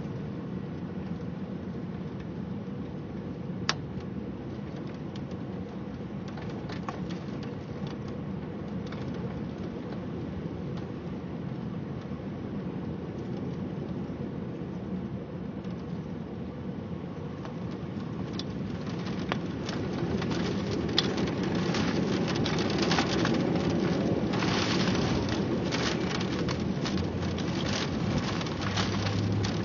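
Steady rain with raindrops ticking on surfaces, growing heavier and louder in the second half. A low rumble of thunder starts near the end.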